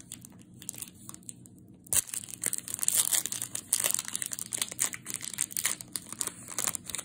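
Foil wrapper of a Panini baseball card pack being torn open and peeled back by hand, crinkling with many small crackles, busier and louder from about two seconds in.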